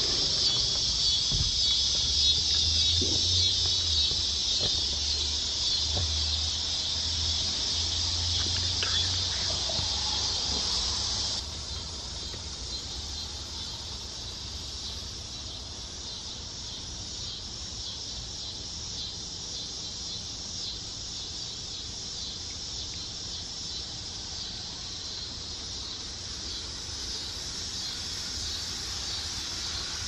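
Evening chorus of insects, a steady high-pitched pulsing buzz, with a low hum underneath. Both drop abruptly in level about eleven seconds in, and the insects carry on more faintly.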